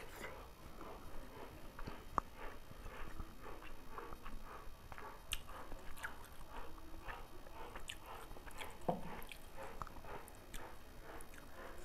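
Eating sounds close to the microphone: chewing, and fingers squishing and mixing rice with mutton curry on a plate, a scatter of small wet clicks and crackles. A sharp tap about two seconds in.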